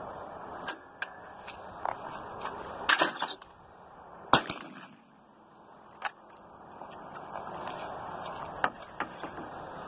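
A single shot from a Greener Police Gun Mark III single-shot 12-gauge shotgun, firing a 2¾-inch lead target shell at a thrown clay, about four seconds in. A sharp clatter comes about a second before it, and scattered clicks of gun handling come before and after.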